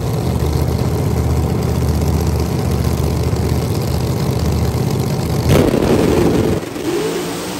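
Car engine idling steadily with a low, even note. About five and a half seconds in there is a brief, louder rush of noise, after which the engine sound drops away.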